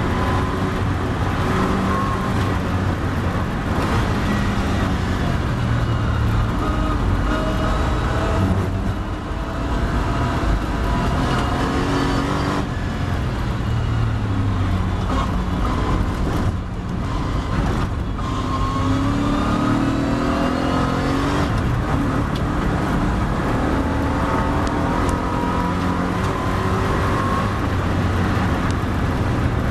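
Triumph TR7 race car's engine heard from inside the cockpit at racing speed, with wind and road noise. Its note drops as the car brakes hard for a corner, then climbs through the gears, rising in pitch through each gear before each upshift.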